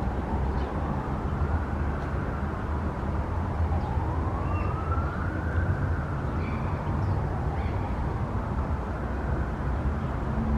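A siren wailing slowly up and down, each rise and fall taking a few seconds, over a low steady rumble, with a few short chirps in the middle.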